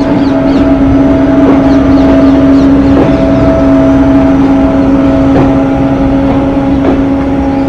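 A diesel locomotive horn sounding one long, steady blast, over the low rumble of the moving train. A few sharp knocks of wheels on rail joints come through it.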